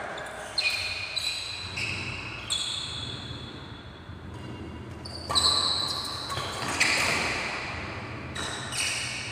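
Badminton rally echoing in a large hall: sharp racket hits on the shuttlecock with high squeaks from shoes on the court floor, coming quickly for the first couple of seconds, pausing, then resuming about five seconds in.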